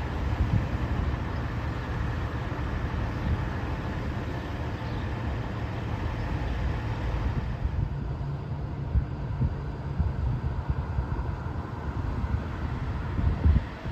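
Street ambience at an emergency scene: a heavy vehicle engine idling, a low steady rumble, with road traffic.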